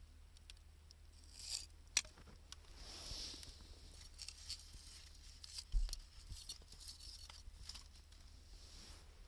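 Wood fire of burning 2×4 lumber and scrap wood crackling softly, with scattered sharp pops and a brief hiss about three seconds in.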